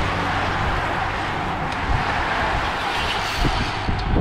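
Steady rushing hiss of a bunch of racing road bikes passing close by: tyres on asphalt and the wind of the riders, with a few soft knocks near the end.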